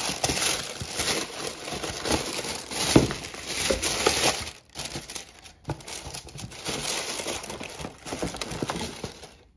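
Tissue paper rustling and crinkling in uneven bursts as it is handled and pulled back from boots in a shoebox, with a sharper crackle about three seconds in.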